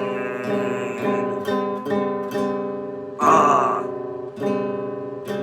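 Acoustic guitar strummed in a steady rhythm, with a brief louder sound about three seconds in.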